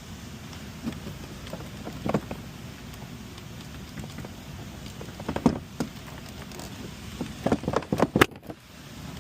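Scattered sharp plastic clicks and knocks from handling and prying at the car door's window switch panel. One comes about two seconds in, another past the middle, and a quick cluster near the end, over a steady low hiss.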